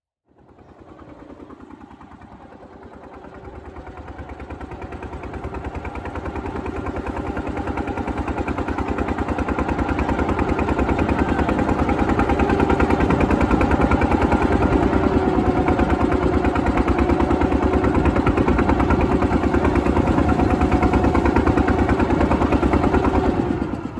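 Boat engine running steadily with a fast, even pulsing. It fades in over about the first ten seconds and cuts off suddenly at the end.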